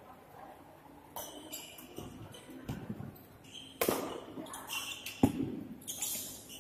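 Badminton rackets striking a shuttlecock during a doubles rally: several sharp hits, the two loudest about four and five seconds in.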